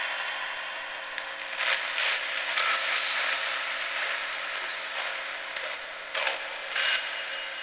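Hacked Jensen radio used as a ghost box, sweeping through stations: a steady hiss of static chopped into short chunks, with brief snatches of sound between them. The ghost hunter reads one of these snatches as a voice saying "get help".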